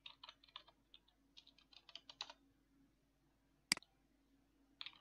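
Faint computer keyboard typing: short runs of keystrokes, with one louder single keystroke about three and a half seconds in.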